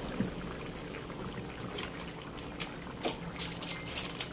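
Thick pork blood stew (dinuguan) bubbling at a boil in a pan: a steady hiss with scattered small pops, busier near the end.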